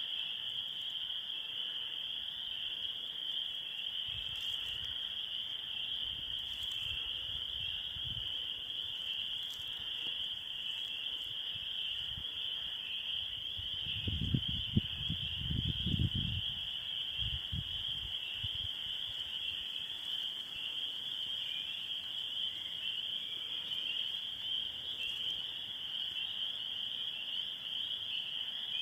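Swamp ambience: a steady, high-pitched chorus of insects. Low pulsing sounds come in twice, the louder about halfway through.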